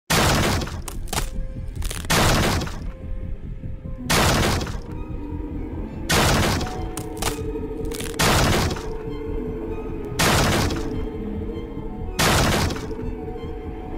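Heavy axe blows striking and splintering a wooden door, seven of them at an even pace of about one every two seconds, over eerie background music.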